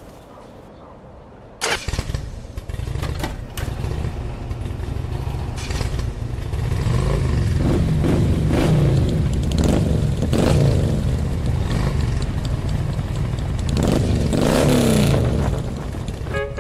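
An engine starting suddenly about two seconds in and running with a heavy low rumble, revving up and down several times.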